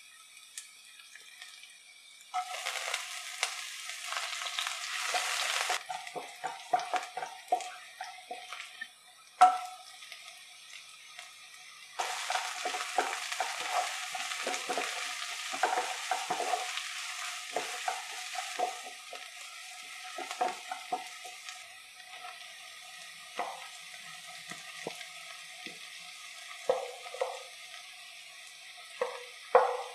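Garlic, onion and chopped vegetables frying in hot oil in a nonstick pan, stirred with a wooden spatula that scrapes and taps the pan. The sizzle flares up loud about two seconds in and again about twelve seconds in, then settles to a lower crackle, with a few sharp knocks of the spatula.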